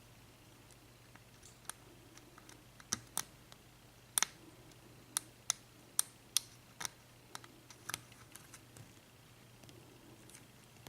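Small, sharp metallic clicks and ticks at uneven intervals from a lock pick and tension wrench working the pin stacks of a Baldwin 5-pin lock cylinder with spool pins, as it is single-pin picked through a false set.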